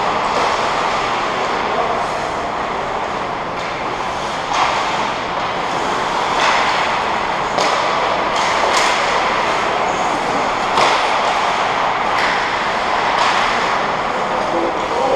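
Ice hockey play on an indoor rink: a steady hum of the arena with skate blades on the ice, broken every second or two by sharp clacks of sticks and puck as the play comes toward the net.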